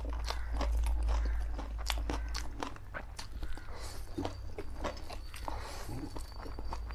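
Close-miked eating of spicy black bean noodles: wet chewing and lip smacks in quick irregular clicks, with noodles slurped into the mouth from about four seconds in. A low steady hum sits underneath and fades about two and a half seconds in.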